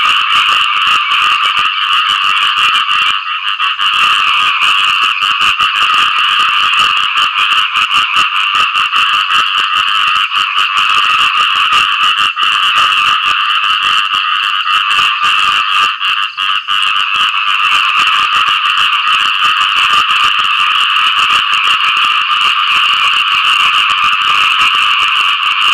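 A dense chorus of khiat i-mo frogs giving rapid, pulsing mating calls after rain, unbroken except for two brief dips.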